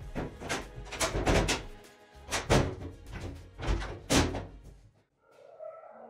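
Several heavy thuds of a checker-plate floor cover being set down and shifted into place, over background music. The thuds stop about five seconds in.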